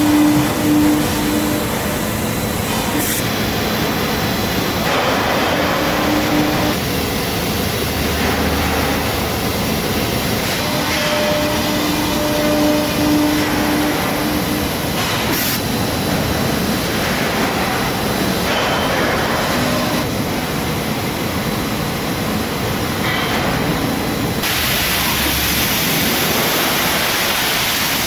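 Welded steel pipe mill running: a steady, loud mechanical din from the roll stands as the pipe feeds through, with a low hum that comes and goes. Near the end the noise turns brighter and hissier.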